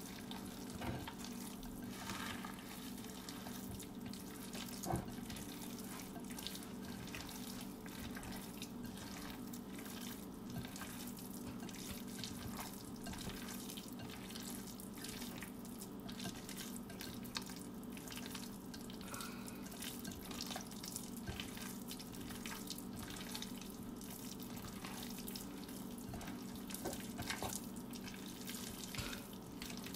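Bare hands squishing and kneading a wet ground chicken meatloaf mixture in a glass bowl, with soft, irregular wet squelches and small clicks. A steady low hum runs underneath.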